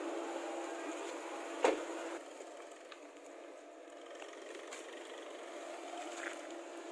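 Maruti Suzuki S-Presso's small engine running at low speed as the car rolls slowly forward, with one sharp knock about a second and a half in, after which the sound drops quieter.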